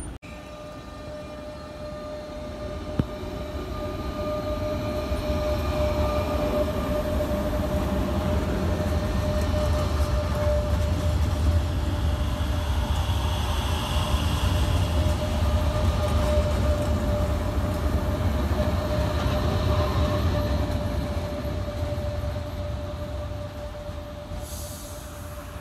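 Renfe class 447 electric commuter train pulling out and rolling past, its wheels rumbling and a steady whine from its electrical equipment. The sound grows louder over the first few seconds, holds, then fades near the end.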